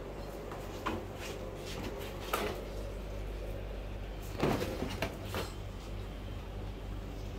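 Steady low hum with a handful of short knocks and clatters scattered through, the loudest cluster about halfway through.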